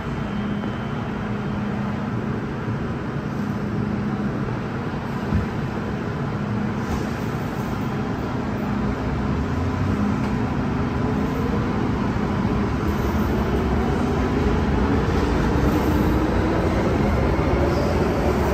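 MTR M-Train electric metro train running, heard on board: a steady rumble of wheels on track with a low steady hum. From about halfway a motor whine starts rising slowly in pitch as the train gathers speed.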